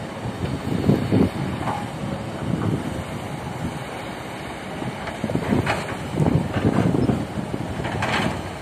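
Heavy construction machinery working: diesel engine noise swelling and easing unevenly, with a few sharp knocks about six and eight seconds in.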